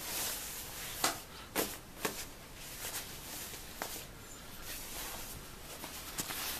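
Quilted nylon shell of a down puffer jacket rustling as it is handled and smoothed flat, with a few sharp clicks or taps in the first four seconds.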